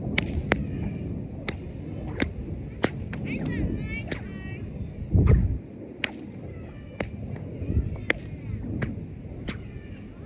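A small 4-foot paracord bullwhip with a bamboo chopstick core cracking again and again as it is swung. Each crack is sharp, coming about every half second to a second. About halfway through there is one dull low thump, the loudest sound.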